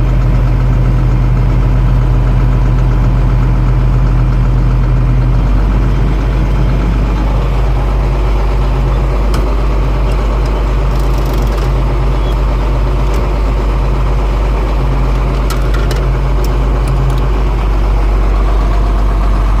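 Engine of a farm machine running steadily at idle, a deep even hum close to the microphone, with a few short clicks in the second half.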